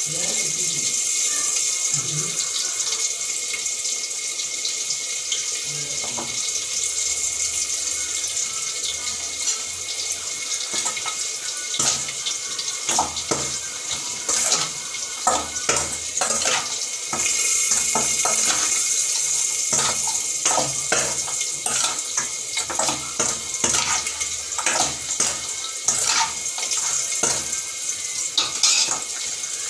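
Tap water running steadily into a sink while hands work in a steel bowl. From about halfway on there are many short clinks and knocks against the metal.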